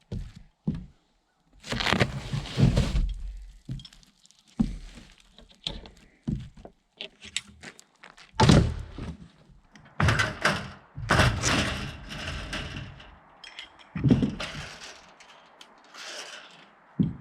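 Irregular thunks, knocks and cracks with some scraping, from hands-on building work, a string of separate strokes with short gaps between them.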